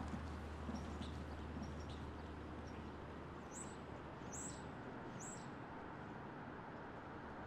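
Faint outdoor background noise with a bird chirping: three short, high, falling chirps just under a second apart around the middle, with a few fainter chirps earlier. A low hum underneath stops about two-thirds of the way through.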